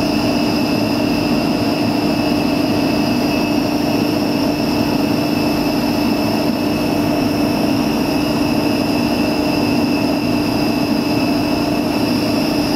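Electric drill running steadily at speed, driving a buffing wheel while a piece of silver is polished against it: an even motor whine with a low hum and high steady tones.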